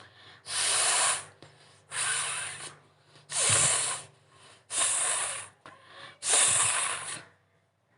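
A woman forcefully blowing her nose five times at an even pace, each blast under a second long, trying to clear mucus brought on by dried chilli put inside her nose.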